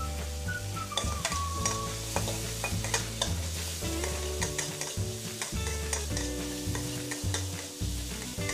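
Metal spatula stirring and scraping chopped tomatoes and chilies around a wok in hot oil, with irregular clicks and knocks of the spatula on the pan over a light sizzle.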